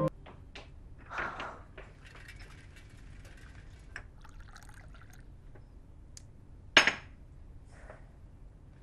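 Tea pouring from a porcelain teapot into a small china cup, with light clinks of china. A single sharp clink about seven seconds in, of china set down.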